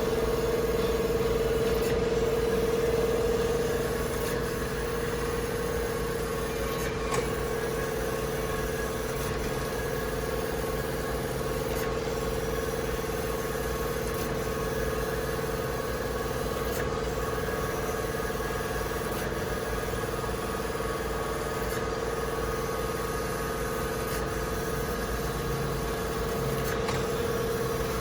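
Kent KGS-300AHD automatic hydraulic surface grinder running: a steady machine hum with a strong steady tone, from its spindle motor and hydraulic pump. The hum eases slightly about four seconds in, and there is a small click about seven seconds in.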